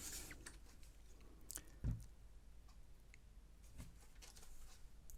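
Faint handling noises of a Commodore Plus/4's plastic case being turned over and moved: a few light clicks, with a soft knock about two seconds in.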